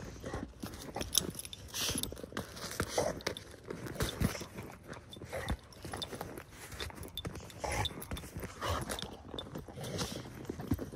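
Exotic bully puppy biting and chewing a basketball, with boots crunching in snow: a run of irregular small crunches and knocks.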